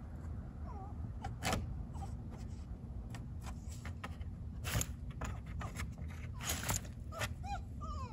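Footsteps and rustling clicks and scrapes over a steady low rumble. Near the end come a few faint, short, high calls that rise and fall, from an animal.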